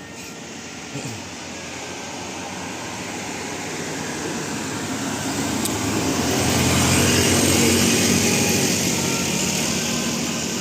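A heavy road vehicle driving past: engine and tyre noise swelling steadily to its loudest about seven seconds in, then easing off.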